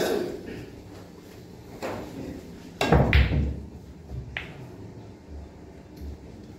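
Pool balls clacking on a billiard table: a few sharp knocks, the loudest about three seconds in with a heavier thud and a short ring after it.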